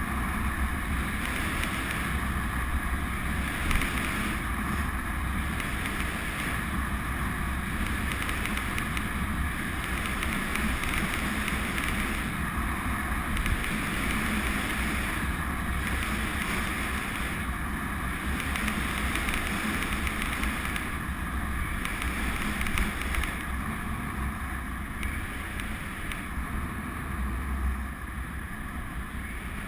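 Steady rush of wind buffeting the camera's microphone, with tyre noise on tarmac, as a road bike freewheels at speed.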